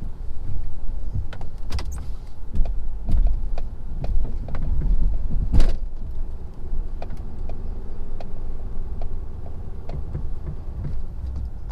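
The 6.7-litre Power Stroke V8 diesel of a 2017 Ford F-250 works hard under load while pushing heavy wet snow with a plow. It is a deep steady rumble, with clatters and knocks throughout and a loud bang about five and a half seconds in. A steady hum joins in over the second half.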